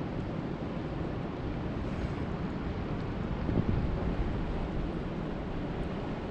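Steady rushing of lake water with wind buffeting the microphone, swelling briefly a little past halfway.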